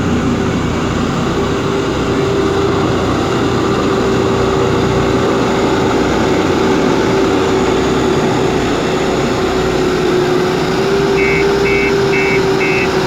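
Backhoe loader's diesel engine running steadily under work. Near the end a high-pitched warning beeper starts, about two beeps a second, typical of a reversing alarm.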